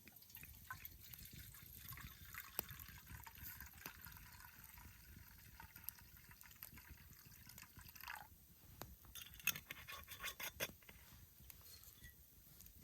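Sake being poured into a small pot to be warmed as hot sake, a soft steady trickle of liquid for about eight seconds. After the pour comes a cluster of sharp clicks.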